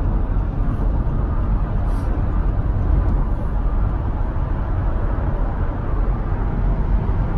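Steady road and engine noise heard inside the cabin of a moving car, mostly a low rumble.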